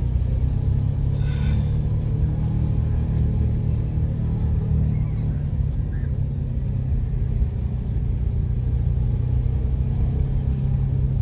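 Steady low rumble, with a brief higher tone about a second in.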